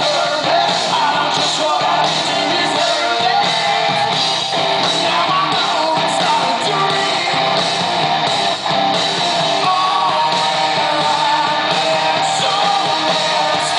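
Rock band playing live: electric guitars and drums with a male lead vocal, heard from the audience in a concert hall.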